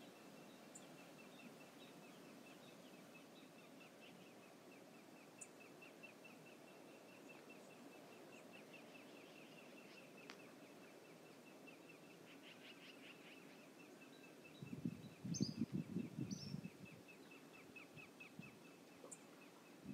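Faint outdoor ambience with a thin, rapid high ticking running through it and a couple of short bird chirps. About three-quarters through comes a brief, louder burst of low rough noise lasting two seconds or so.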